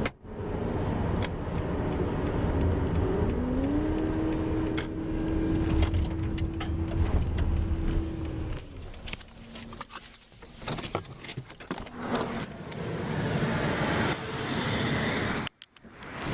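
Road and engine noise inside a car travelling at highway speed: a steady low rumble with scattered light clicks and rattles. A hum rises in pitch a few seconds in and holds for about five seconds before fading.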